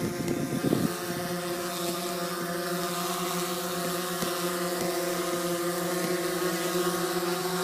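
DJI Phantom 4 quadcopter hovering, its propellers giving a steady hum of several evenly spaced held tones. A brief rustle comes in the first second.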